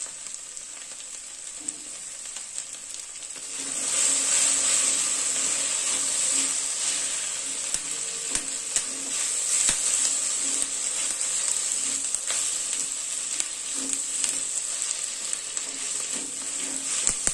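Sliced okra sizzling as it fries in a cast-iron kadai, growing louder about four seconds in, with the scrape and clack of a spatula stirring it against the pan.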